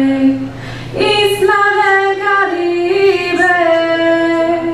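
A woman singing solo and unaccompanied into a microphone, holding long, steady notes, with a short breath about a second in.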